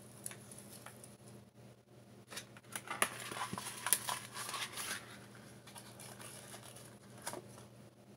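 Cardboard being torn and crinkled by hand and laid among kindling in a wood stove's firebox, with a few light knocks, busiest around the middle.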